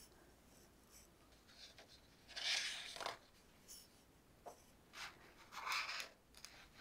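Paper pages of a picture book being turned by hand: two soft swishes of paper, about three seconds apart, with a few light clicks of fingers on the pages.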